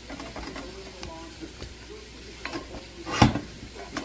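A utensil stirring in a cooking pan, with scattered light clicks against a steady hiss and one louder clank a little after three seconds in.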